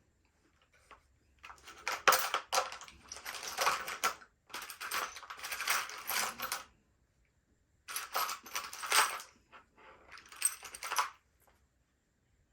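Small metal hand tools clinking and rattling as they are rummaged through, in four bursts of a second or two each.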